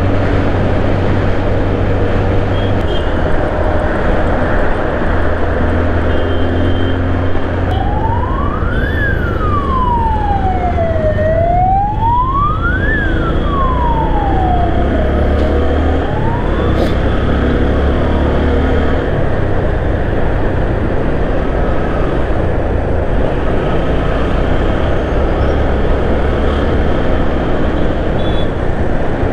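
Steady wind and engine rumble of a motorcycle riding through traffic, with an emergency vehicle's siren wailing up and down twice from about eight seconds in, fading out about halfway through.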